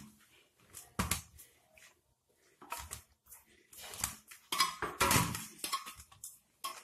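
Maida samosa dough being kneaded by hand in a stainless steel bowl: irregular knocks and scrapes of the dough and hands against the steel.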